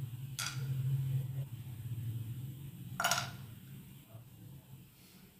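Whole spices tipped from a steel spoon into a dry nonstick pan: two short taps, about half a second in and again about three seconds in, over a low steady hum.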